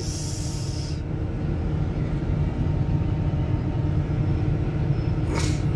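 Komatsu D155 bulldozer's diesel engine running, heard from inside the cab as a steady low rumble. A short hiss sounds in the first second.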